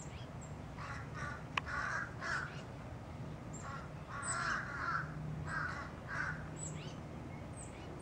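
Blackbirds mobbing a perched owl, giving harsh, scolding alarm calls in clusters of two or three every second or two, with a few short high chips between them.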